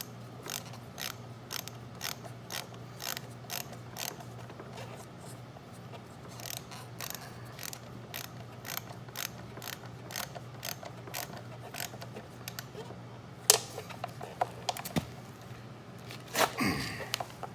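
Hand ratchet wrench clicking in even strokes, about two clicks a second, with a pause near the middle. A single sharp knock comes a little over halfway through, and a short clatter of metal near the end.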